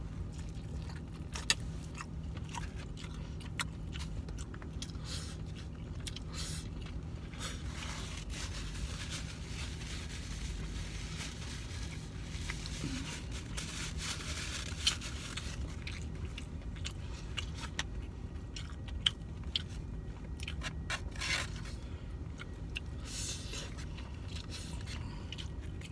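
A man chewing and eating camel meat and rice close to the microphone, with scattered short clicks and scrapes throughout over a steady low hum.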